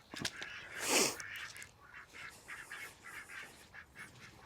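Domestic ducks quacking in short repeated calls, with one louder, harsher call about a second in.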